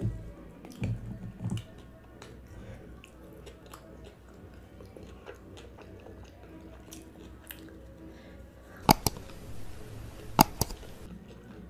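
Close-miked chewing of a mouthful of fried pakora, with a few soft knocks at the start as food is picked off a plate. Near the end come two sharp mouse-click sounds about a second and a half apart with a hiss between them, matching a subscribe-button animation.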